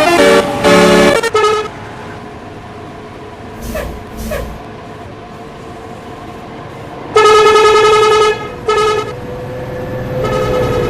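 Bus's Basuri telolet air horn: a short melody of changing notes ends about a second in, two brief toots come near four seconds, then a long, loud held chord from about seven seconds, a short blast, and a softer held chord near the end.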